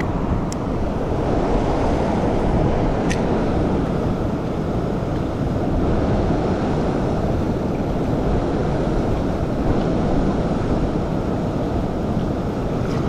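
Water rushing over a spillway at full flow: a loud, steady rush, with two faint sharp clicks in the first few seconds.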